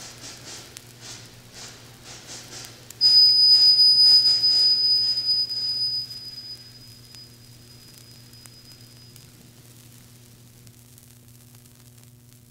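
Faint, evenly spaced ticking, then about three seconds in a sudden, loud, very high steady whistling tone that fades away over several seconds. After it only a low electrical hum and faint record surface noise remain, a gap with no music.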